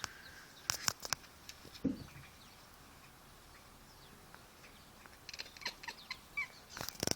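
Kitten chattering: a few sharp clicks about a second in, then a quick run of short clicky chirps near the end.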